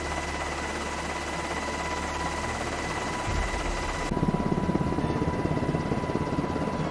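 A steady mechanical engine drone with a thin, high, steady whine. About four seconds in, it turns into a fast, even, low beating.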